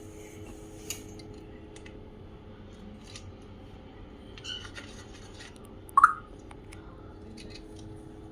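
Faint scratching and clicking over a steady low hum; about six seconds in, an African grey parrot gives one short, loud squawk that rises in pitch.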